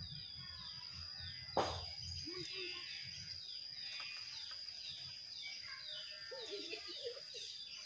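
Faint outdoor ambience: a bird chirping over and over in short falling notes, a few a second, over a steady high-pitched tone. A single sharp knock comes about one and a half seconds in.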